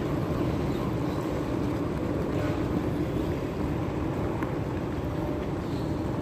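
Steady low rumble of a large airport terminal hall, even in level throughout.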